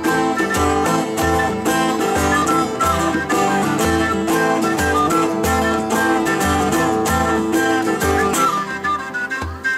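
Live folk band playing an instrumental Moldavian (Csángó-style) tune: a strummed acoustic guitar, a djembe beating about twice a second, and a flute melody. About a second before the end the band thins out, leaving mostly the drum beats.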